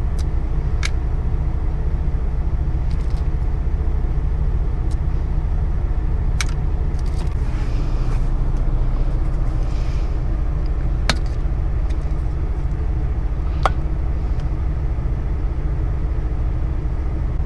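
Kenworth T680 semi-truck's diesel engine idling steadily, heard from inside the cab, with a few light clicks of plastic food containers and a fork.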